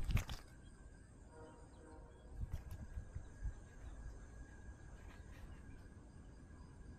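Faint outdoor ambience with a low rumble and thin steady high tones, a brief knock at the start and a few soft thumps in the middle.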